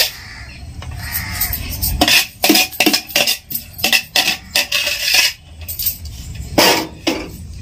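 Irregular scraping and clinking of a utensil against a large steel serving platter as a heap of biryani rice is turned over.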